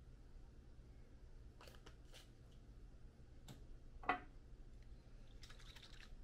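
Quiet room hum with a few faint clicks and light knocks, the sharpest about four seconds in as a plastic spice shaker is set down on the glass tabletop; a quick run of small ticks follows near the end.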